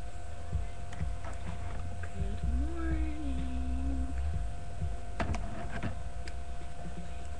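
Steady electrical hum and low rumble of a webcam microphone. About two and a half seconds in, a person makes a short hummed "mm" that rises and then holds, and a few light clicks follow about five seconds in.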